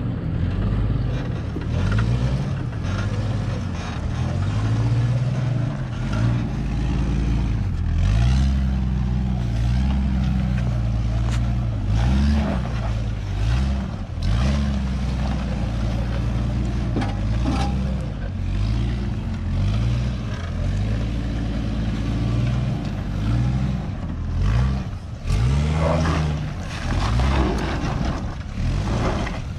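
A 4x4 SUV engine revs up and down repeatedly as the vehicle crawls at low speed over an off-road trail obstacle, with scattered sharp clicks and knocks.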